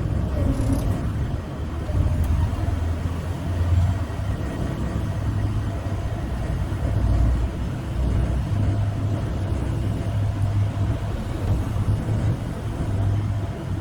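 Liebherr 922 rail machine's diesel engine running with a steady low rumble that swells and eases a little, likely under hydraulic load as the repaired tiltrotator is rotated.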